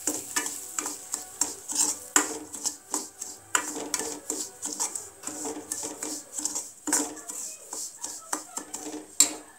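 A metal spoon scraping and clinking against a stainless steel kadai while stirring semolina (rava) as it roasts, in irregular strokes several a second, with one sharp clink near the end.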